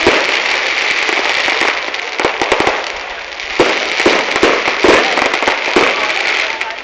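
Aerial fireworks going off: dense crackling throughout, with several separate louder bangs, some about a second apart.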